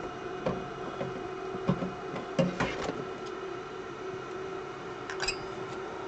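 Light clicks and taps of tools working on an Xbox controller's circuit board as flux goes on and the old bumper switches are readied for desoldering, over a steady hum.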